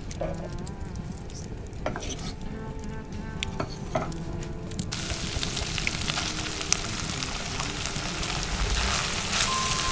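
Faint background music and a few utensil clicks, then about halfway through a loud frying sizzle starts suddenly and keeps going.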